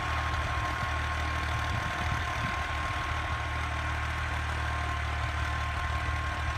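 Fiat 480 tractor's diesel engine running at a steady speed, with a thin steady whine above the engine note.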